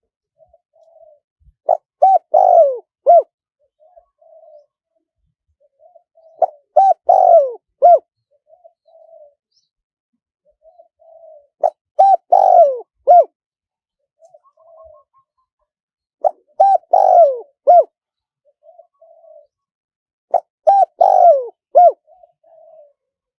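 Spotted dove cooing: a repeated multi-note song phrase about every four and a half seconds, with short soft coos between the phrases. It is the 'karom' song style that Thai dove keepers play as a decoy call to draw wild doves in.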